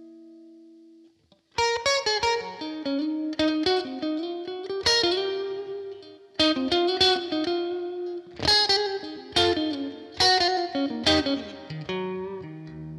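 Fender Stratocaster electric guitar played through a Universal Audio OX amp top box on a clean 4x10 cabinet preset. A held chord fades out, there is a short gap about a second and a half in, and then a phrase of picked chords and single notes with crisp attacks rings on.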